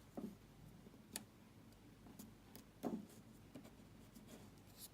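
Faint handling of paper card pieces being pressed together: a few soft, scattered clicks and taps, one slightly louder near the middle, over near silence.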